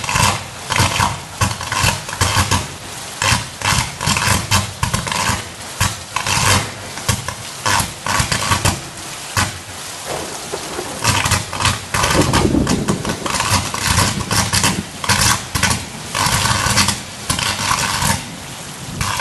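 Electrical arc from a short-circuiting power line on a utility pole, crackling and buzzing in loud, irregular surges.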